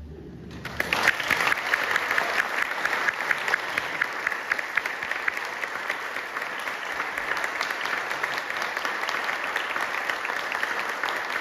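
The ensemble's last chord dies away, and under a second in the audience breaks into steady applause.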